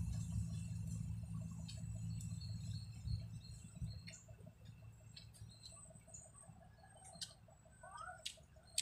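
Faint eating sounds: instant noodles being slurped and chewed, with a few light, sharp clicks of chopsticks and a steel spoon against a metal bowl. Birds chirp faintly in the background.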